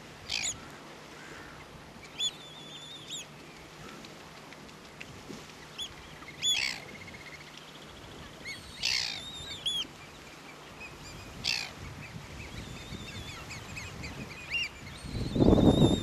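Caspian terns giving about ten short, high, down-slurred calls at irregular intervals. Near the end a gust of wind buffets the microphone with a loud low rumble.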